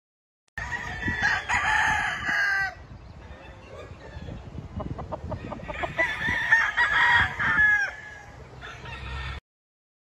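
Gamefowl roosters crowing: one long crow near the start and a second about six seconds in, with quieter clucking between.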